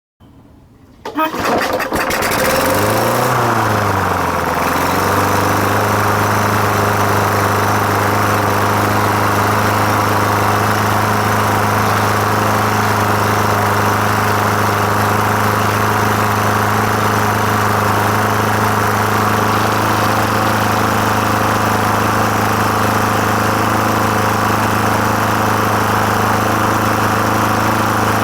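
A lawn mower's single-cylinder engine starts about a second in. Its speed swings up and down for a few seconds, then it settles into a steady run. The engine has a newly replaced head gasket, the fix for oil being blown out through the air filter.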